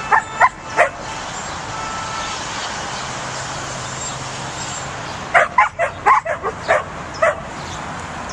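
Pembroke Welsh Corgi puppy barking at the sheep it is herding, in short high yaps: about four in the first second, then a quick run of about eight from a little past five seconds. A steady hiss lies underneath.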